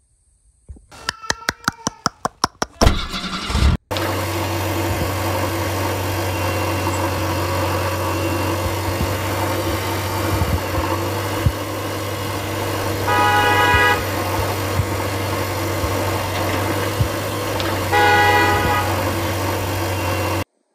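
Vehicle engine sound effect: a quick run of clicks as it cranks, then it starts and runs steadily. A horn honks twice in the second half, and the engine cuts off suddenly near the end.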